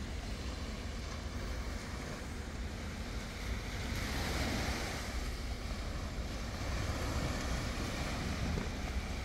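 Small, shin-high surf breaking and washing up a sand beach, with a steady low wind rumble on the microphone; a wave rush swells about four seconds in.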